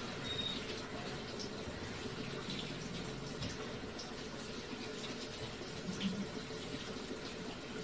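Kitchen tap running steadily into the sink as something is washed by hand, with a few faint knocks and clinks.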